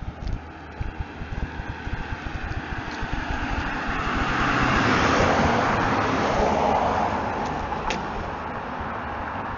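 A car driving past on the road, its tyre and engine noise swelling to a peak about five seconds in and then fading away.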